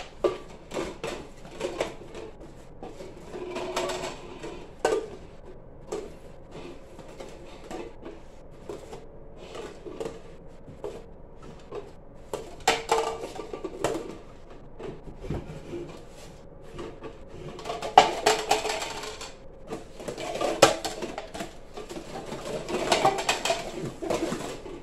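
Red plastic party cups being speed-stacked into pyramids and taken down on a wooden table: many quick, irregular clacks and taps of plastic on plastic and on wood, with denser clattering spells here and there.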